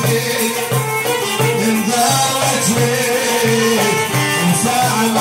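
Live Iraqi folk music played by a small band of oud and hand drums, with a low note repeating in a steady pulse.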